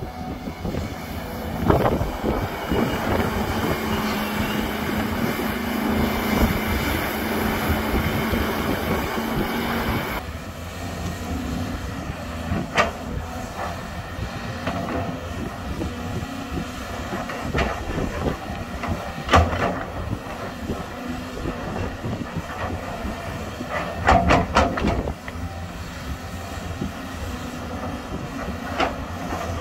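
Volvo crawler excavator's diesel engine running and hydraulics working as the bucket digs a trench. A steady hum under load cuts off about ten seconds in, and the machine settles to a lower running note with several sharp metal clanks.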